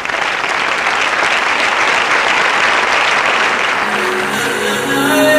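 A large seated audience applauding. Instrumental music comes in under the clapping about four seconds in.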